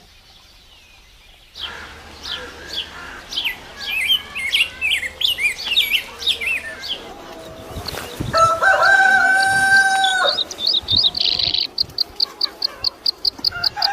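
Poultry calls. A run of short, high, falling chirps like chicks cheeping, then a loud two-second call held level in pitch, fitting a rooster's crow, about halfway through. It ends in a fast, even series of high chirps.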